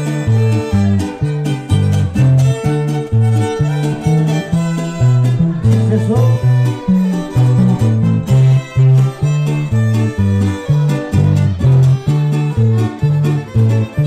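Huasteco trio playing an instrumental passage in huapango style. A violin carries the melody over the strummed jarana and huapanguera, which keep a steady, rhythmic bass-and-chord pattern.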